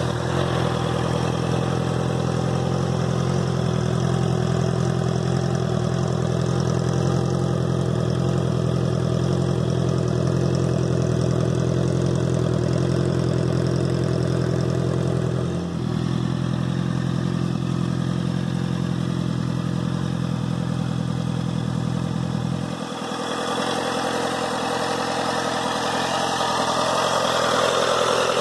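Honda CBR650F inline-four engine idling through a Black Widow oval aftermarket exhaust with its dB-killer baffle in. The idle is steady, and its tone shifts slightly about halfway through and again about three quarters in.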